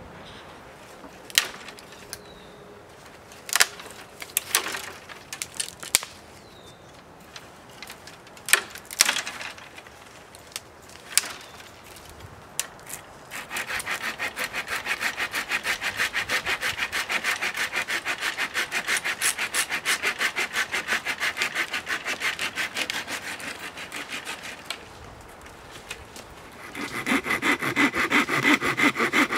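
Folding hand saw cutting through a wooden branch with quick, even back-and-forth strokes. The sawing starts about halfway through, eases off briefly, then comes back louder near the end. Before it, a scattering of sharp snaps and cracks.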